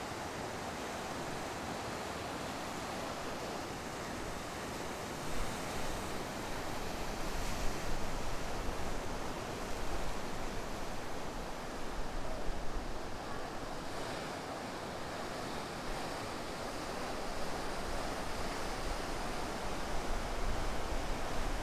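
Ocean surf: big waves breaking and white water rushing, a steady roar that swells louder about a quarter of the way in and again near the end.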